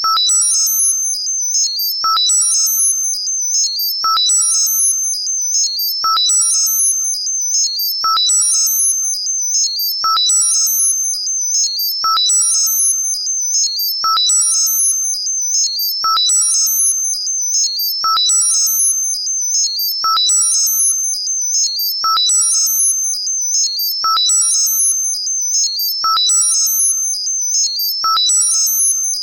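Synthesized high-pitched tinnitus-masking sound. A short, lower ping sounds every two seconds, under a fluttering cluster of very high tones and a steady high whistle, in an even, repeating cycle.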